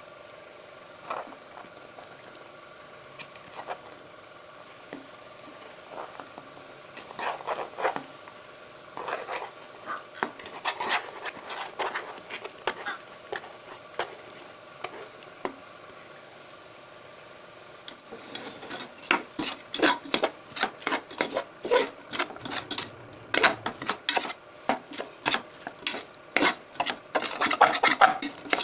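A spoon stirring and scraping soya chunks and chopped vegetables around a pressure cooker pot over a steady sizzle. The strokes are scattered at first, then fast and continuous for the last third.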